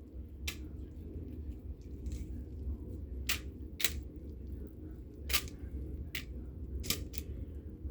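Kitchen handling noises: a series of short, sharp clicks and taps at irregular intervals, about eight in all, over a low steady hum.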